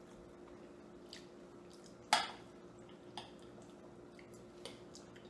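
Quiet eating sounds of pasta: forks clicking against ceramic plates and wet chewing. There are four sharp clicks, the loudest about two seconds in, over a faint steady hum.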